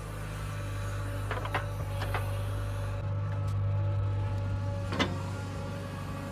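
Small electric motor of a toy construction vehicle running with a steady hum, broken by a few sharp clicks, the loudest about five seconds in.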